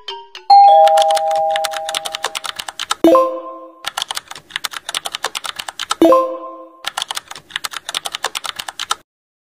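Rapid computer keyboard typing clicks, used as the sound of a chat message being typed out. A loud held tone sounds about half a second in for nearly two seconds, and a bright chime rings twice, about three and six seconds in; the typing stops shortly before the end.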